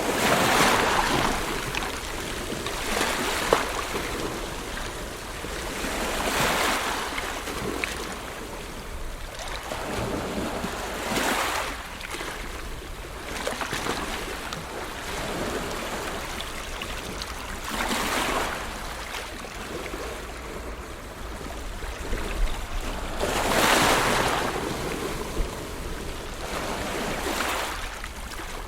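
Ocean waves breaking and washing in, a surge of surf every few seconds over a constant rush of water, with a steady low rumble underneath.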